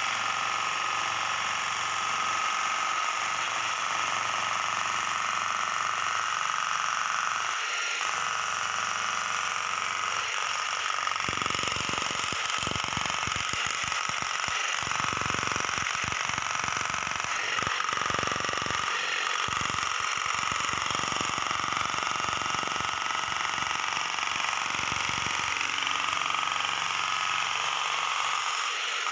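Electric demolition hammer (jackhammer) with a wooden block fitted on its bit, hammering continuously as a makeshift tamping rammer to compact gravel. A deeper rumble comes and goes through the middle stretch.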